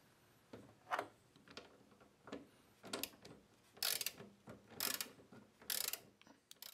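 Socket wrench ratcheting in short strokes, roughly one a second, as a 15 mm nut is turned on the axle of a skateboard wheel used as a friction-drive roller.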